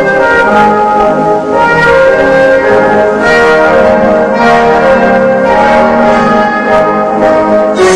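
Brass music playing loudly, with held notes that change every half second to a second.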